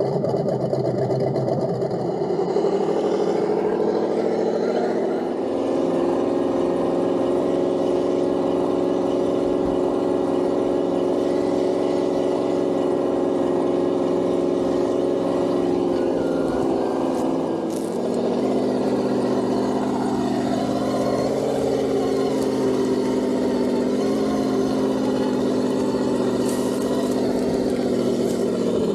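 Sense ESS Dual engine sound module on an Axial SCX6 RC crawler, playing a simulated full-size engine note through its speakers. The note holds steady, then shifts in pitch as the throttle changes, about 5 seconds in and again around 18 seconds.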